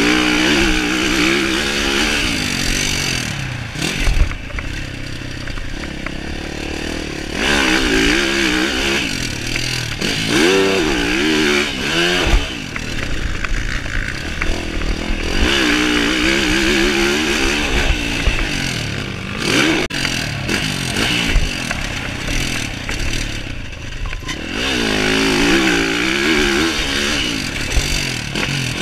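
Yamaha SR500 single-cylinder four-stroke engine ridden hard round a dirt track. It revs up in repeated surges, about five, and drops back in between as the throttle is opened and closed.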